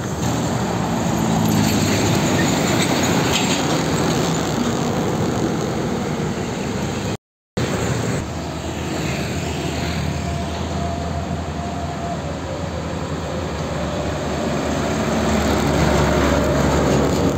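Nissan Diesel Condor container trucks passing on the road, diesel engines running under tyre and traffic noise. The sound cuts off briefly about seven seconds in, then a truck passes close, growing louder near the end.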